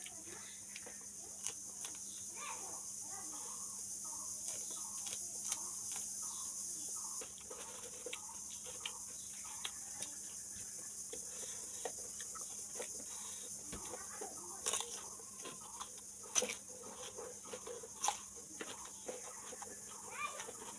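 Close-up chewing and crunching of raw green chillies and raw cucumber: crisp crunches and mouth clicks, with sharper, louder bites into the cucumber in the second half. A steady high hiss runs underneath.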